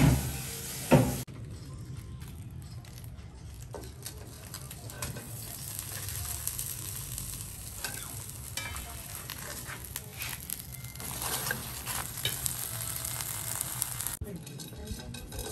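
Food frying in a hot pan: a steady sizzle with small clicks of stirring. It opens with a few loud knocks in the first second, and the sizzle drops away about a second before the end.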